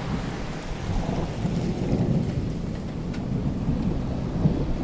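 Thunder rumbling over steady heavy rain, the low rumble swelling about a second and a half in and easing off toward the end.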